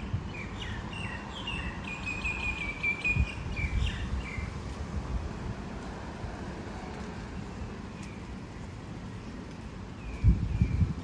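A small bird chirping a quick run of short notes during the first few seconds, over a steady outdoor hiss and low rumble. A few low thumps come near the end.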